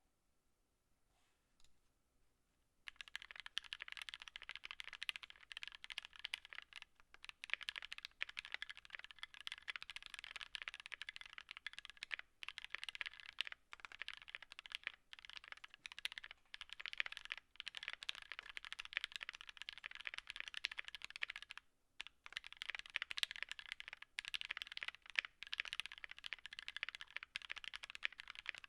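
Continuous fast typing on a 60% mechanical keyboard in an aluminium Tofu60 case with a brass plate and lubed, filmed Gateron Ink Black v2 linear switches: dense clacky keystrokes starting about three seconds in, with a few short pauses.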